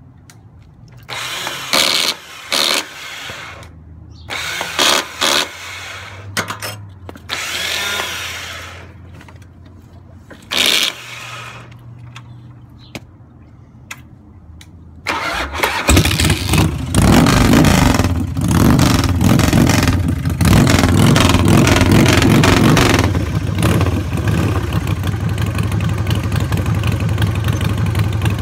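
Harley-Davidson Dyna FXDX's Twin Cam 88 V-twin being cranked over on the starter in several short attempts, a sign of its hard starting. About halfway through it catches and keeps running, easing off a little after several seconds.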